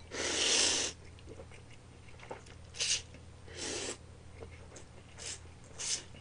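Buckwheat soba noodles being slurped up from a cold dipping broth: one long slurp at the start, then several shorter slurps.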